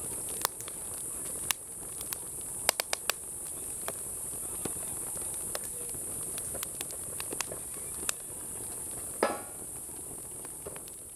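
Wood fire of stacked kindling crackling in a steel fire basket, with sharp snaps and pops scattered throughout and one longer, louder crack about nine seconds in. Behind it runs a steady high-pitched shrill of insects.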